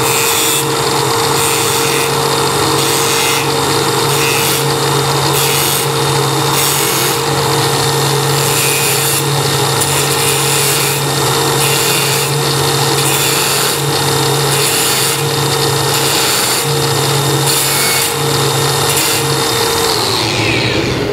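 Angle grinder with a thin cutoff wheel grinding steel tack welds thin on a plate joint: a steady motor whine under a rasping grind that swells in regular strokes, the motor winding down near the end. The tacks are being thinned so the root pass can burn through them.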